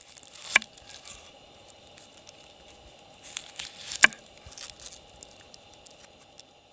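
Crackling over a campfire with scattered small pops, two louder sharp pops about half a second and four seconds in.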